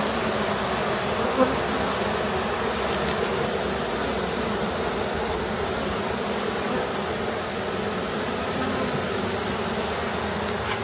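Honeybees buzzing steadily around an open hive, a dense continuous hum, with a single brief click about a second and a half in.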